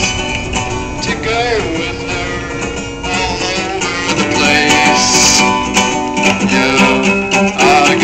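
A man singing to his own strummed acoustic guitar, played live. The strumming gets louder and busier about halfway through.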